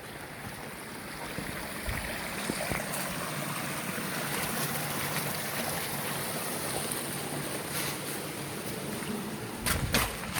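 Spring-fed stream running with a steady rushing of water, and a few sharp knocks near the end.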